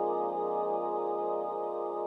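Sequential Prophet 12 synthesizer holding a sustained pad chord. Its many close tones waver against each other, and it slowly gets quieter.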